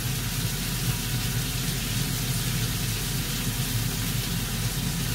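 Food sizzling steadily in a frying pan over a steady low hum, with no breaks or sharp knocks.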